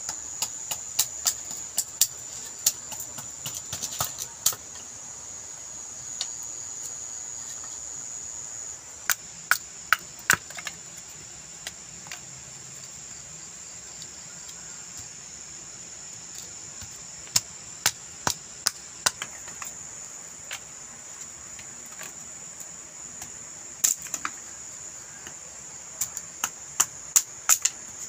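Sharp wooden knocks in four bursts of several strokes each, a blade chopping thin firewood into kindling on a wooden block. A steady high-pitched insect chirr runs underneath.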